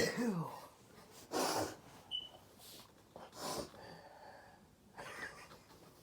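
A person's voice trailing off in a falling tone at the end of a sneeze, followed by three short breaths about a second and a half in, three and a half seconds in, and five seconds in.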